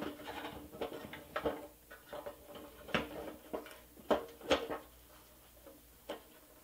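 Small screwdriver prying and scraping at the rear wheel of a 1960 Tonka toy truck, working out the dry-rotted rubber whitewall insert: scattered light scrapes and clicks, with a few sharper clicks between three and four and a half seconds in.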